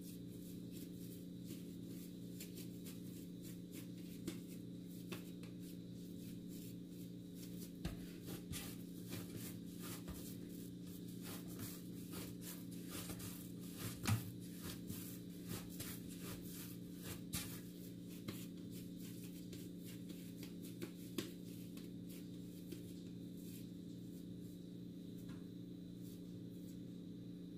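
Hands kneading and rolling bread dough into balls, with soft pats, rubs and taps against a board and baking tray, one louder tap about halfway through. A steady low hum runs behind it.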